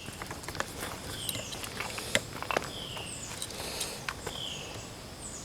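Footsteps on a dirt or concrete work site, with scattered small clicks and knocks. Behind them a bird calls repeatedly, a short sweeping note about every second and a half.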